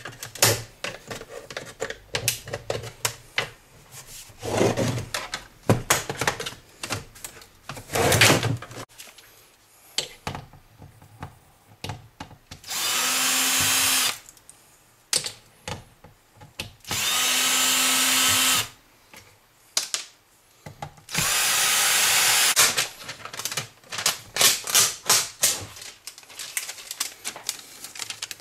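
Cordless drill/driver running in three steady bursts of about a second and a half each, in the middle stretch, backing screws out of a flat-panel monitor's sheet-steel chassis. Before them come sharp plastic clicks and snaps as the bezel is pried off. Near the end there are crackles and clicks of plastic protective film being peeled.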